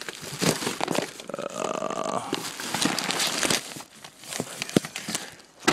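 Plastic bags and packaging crinkling and rustling as they are handled, with scattered small clicks and knocks.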